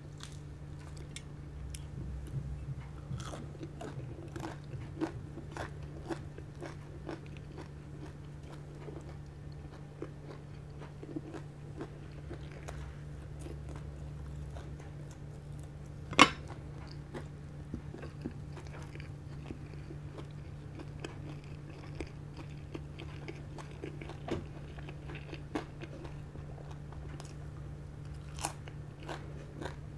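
Close-miked biting and chewing of crispy fried pork knuckle (crispy pata), with many small crunches of crackling skin and one much louder crack about halfway through, over a steady low hum.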